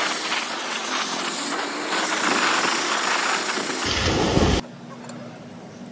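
Pressure-washer jet hissing as it blasts a scooter's aluminium engine casing, with a brief low rumble near four seconds in. The spray cuts off suddenly at about four and a half seconds, leaving a quieter steady hum.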